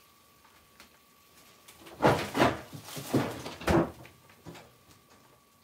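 Kitchen handling noises: a cluster of rustles and knocks about two seconds in, lasting a couple of seconds, then a few faint taps.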